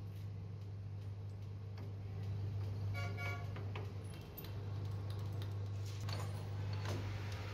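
Electric metal lathe running with a steady low hum that dips briefly a little past the middle. A short ringing metal clink comes about three seconds in, and a few light knocks near the end.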